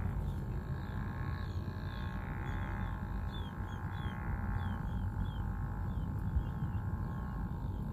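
Outdoor field sound: wind rumbling on the microphone over a steady buzzing drone, with a small bird giving a quick series of short, high, falling chirps through the middle.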